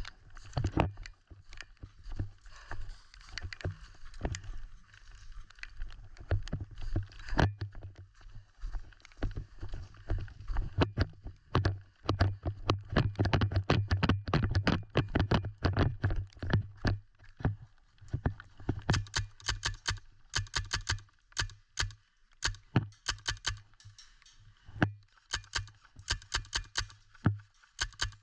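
Rapid, irregular footsteps and knocks of gear as an airsoft player moves on foot, over a low rumble on the microphone. The steps are thickest in the middle and again late on, with a short lull between.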